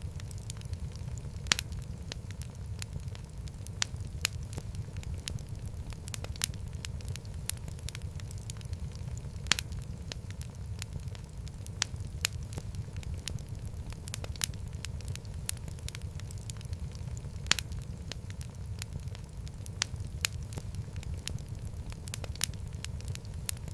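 Wood fire burning in a fireplace: a steady low rumble of flame with irregular sharp crackles and pops, a few of them louder.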